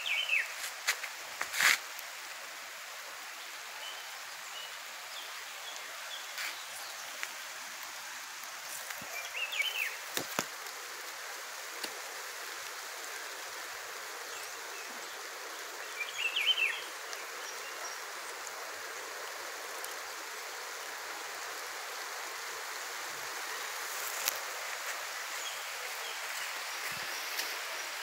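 Steady rain falling outdoors, an even hiss that grows a little louder near the end. A few short high chirps stand out above it, and there are a couple of sharp knocks near the start.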